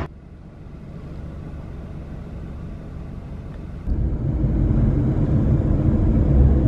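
Low rumble of a moving taxi, with road and engine noise. It is quiet at first and turns louder and heavier about four seconds in.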